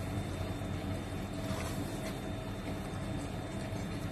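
A silicone spatula stirring mashed eggplant and egg in a nonstick wok, with a few faint scrapes, over a steady low hum and hiss.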